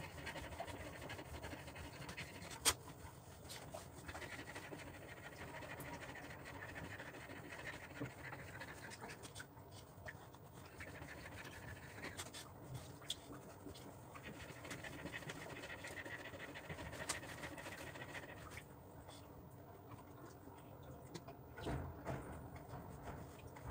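German Shepherd panting faintly while being rubbed dry with a towel, with the soft rustle of the towel. A sharp click sounds a few seconds in.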